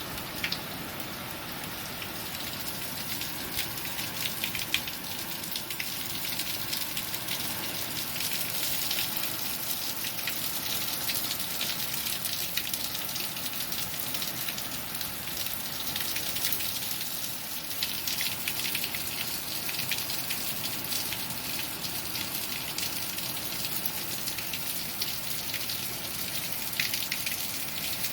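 Heavy rain from a derecho thunderstorm falling steadily: a dense, even hiss made of countless fine drop impacts.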